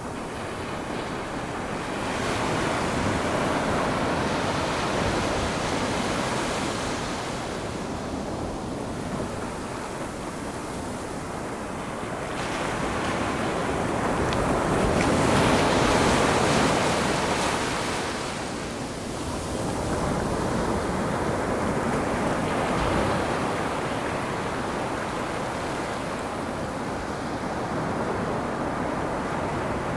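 Ocean waves breaking and washing up a shore, swelling and easing in slow surges several seconds apart, the biggest one about halfway through.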